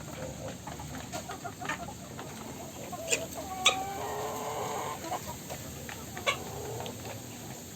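Chickens clucking, with several short sharp calls and one longer drawn-out call about four seconds in.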